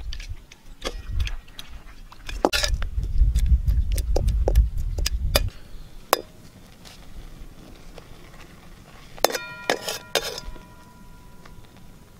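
A perforated metal ladle clinking and scraping against a metal wok in a series of irregular strikes, with a cluster of ringing clangs near the end. A low rumble runs for a few seconds in the first half.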